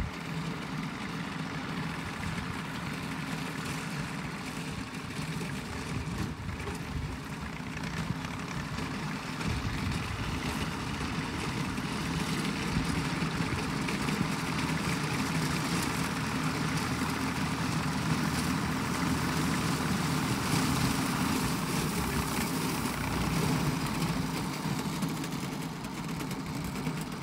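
Tractor engine running steadily as it drives a front-mounted reaper through standing wheat, louder from about ten seconds in as the tractor comes closer.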